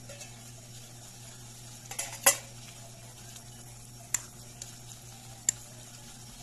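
A metal ladle clinks and knocks against a metal cooking pot while stirring vegetable soup: a handful of sharp clinks, the loudest a little over two seconds in, over a low steady hum.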